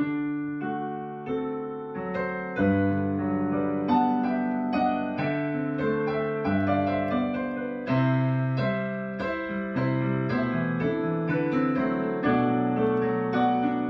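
Yamaha digital piano played solo: full sustained chords over low bass notes, a new chord struck about every second, each one ringing on into the next.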